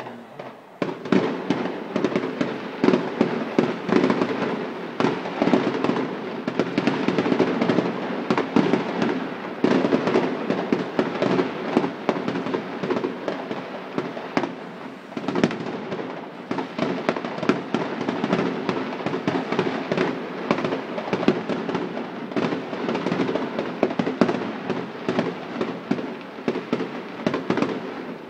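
Fireworks display going off in a rapid, near-continuous barrage of bangs and crackles that starts about a second in and briefly eases about halfway through.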